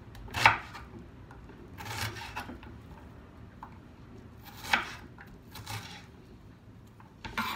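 Kitchen knife dicing a white onion on a wooden cutting board: about five separate blade knocks on the board, spaced unevenly with pauses between.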